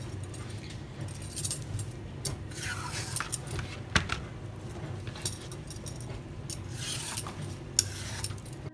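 A metal Y-shaped vegetable peeler scraping strips of skin off a courgette in a few long strokes, with light metallic clinks. There is a sharp click about four seconds in and another near the end.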